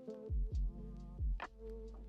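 Background electronic music with a beat: deep bass notes that slide down in pitch under a steady synth chord, with a sharp snare-like hit about halfway through.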